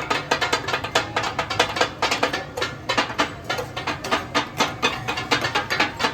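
Steel spatulas clattering rapidly on a flat iron tawa, chopping and tossing katakat offal, several sharp metallic strikes a second in an irregular beat.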